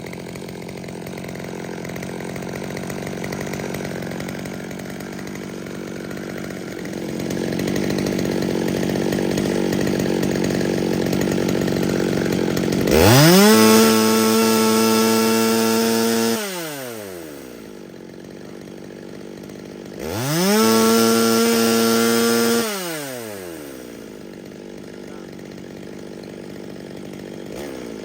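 Holzfforma G111 two-stroke chainsaw engine running low, then revved to full throttle twice, each rev held about three seconds before dropping back, with a third rev starting at the very end. The engine is being test-run while its carburettor's low- and high-speed mixture is retuned because it was running very rich.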